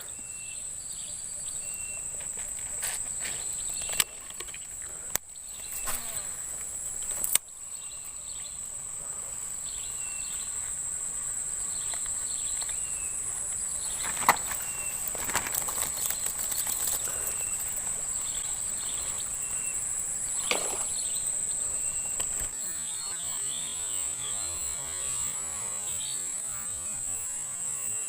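Insects buzzing in a steady, high-pitched drone, with a few sharp clicks in the first several seconds.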